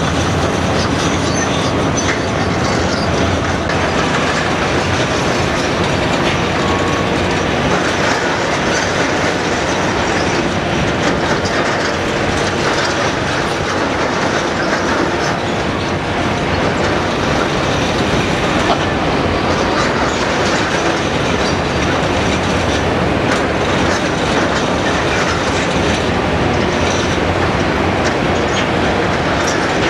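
Roadheader cutter drum on a Komatsu PC228 excavator grinding into a rock face: a loud, steady grinding clatter, thick with rapid clicks.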